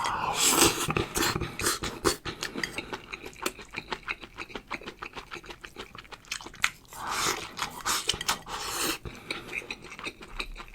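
Close-miked eating sounds of a mouthful of shredded-pork rice: rapid wet chewing and smacking clicks. There are two longer hissing stretches, one at the start and one about seven seconds in.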